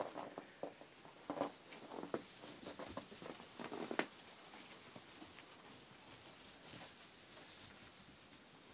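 Jacob sheep pulling at and chewing loose hay on a straw-covered floor: irregular rustles and crunches for the first few seconds, the sharpest about four seconds in, then only a faint hiss.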